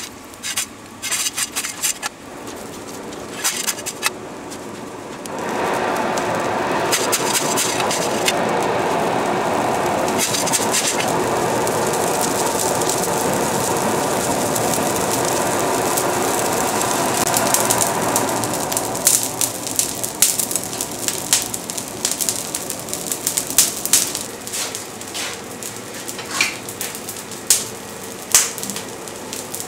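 Coal being shovelled and scraped onto a forge fire, then the forge's air blower running, a steady rush for about 13 seconds as the fire is blown up. When the rush drops, the burning coal crackles and pops over a lower steady blowing.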